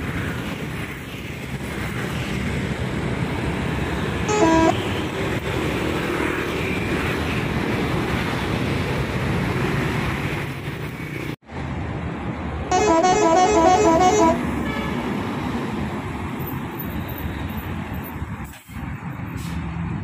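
Shantika bus's telolet horn, a multi-tone musical air horn. It gives a short burst about four seconds in and a longer run of quickly alternating notes around thirteen seconds in, over steady engine and road noise.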